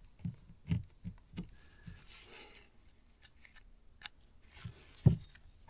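Scattered handling knocks and small clicks as hands work on the engine hose with tools and parts: about five soft knocks in the first two seconds, then a louder knock about five seconds in.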